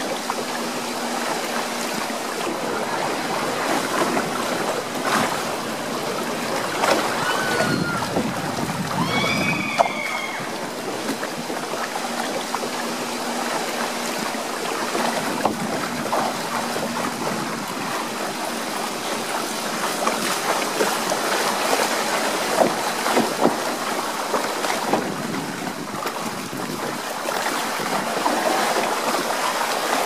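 Water rushing and churning along a log-flume channel, heard from onboard the boat as a steady, even wash of water noise.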